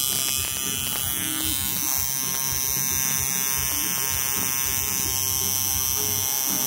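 Coil tattoo machine running with a steady electric buzz.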